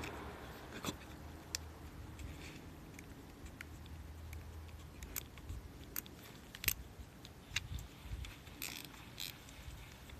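A utility knife blade slicing and scraping into the hard flesh of a Euphorbia acrurensis stem, trimming the cut surface, which is very hard to cut. Scattered faint sharp clicks and short scrapes, more of them and louder in the second half.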